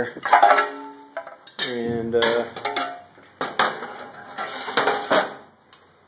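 Sheet-metal parts of a dismantled gas furnace's flue box clanking as they are handled. Several sharp knocks, each followed by a short metallic ring.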